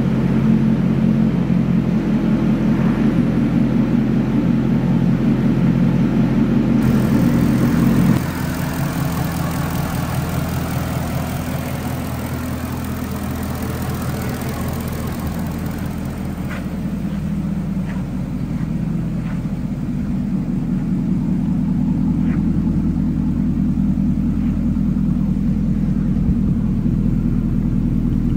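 2011 FPV FG GT Falcon's supercharged 5-litre Miami V8 idling steadily, with a deep, even exhaust note. The sound steps down a little in level about eight seconds in, and a few light ticks come through in the middle.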